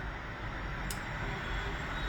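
Steady hissing background noise, with one small sharp tick about a second in.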